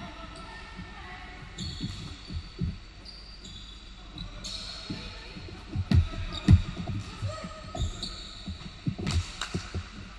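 Basketball game on a hardwood gym floor: irregular thuds of a ball bouncing and players' footsteps, with short high squeaks and faint voices. The loudest thuds come about six seconds in.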